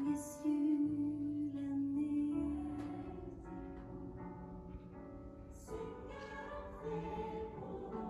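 Slow music with long held notes, the first lasting about two and a half seconds, and a fuller passage coming in at about five and a half seconds.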